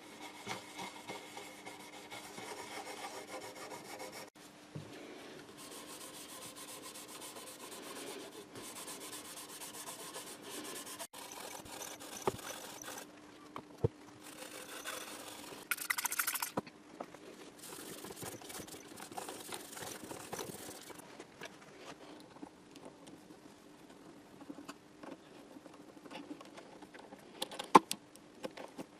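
Hand rubbing, scraping and filing strokes on an acoustic guitar, in short segments that cut in and out abruptly, over a faint steady hum, with a few sharp clicks near the end.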